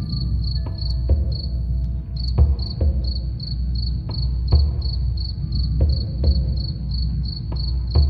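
Crickets chirping steadily, about three short chirps a second, over a low drum beat of paired soft thumps roughly every second and a half. A few wind chime tones ring near the start and again near the end.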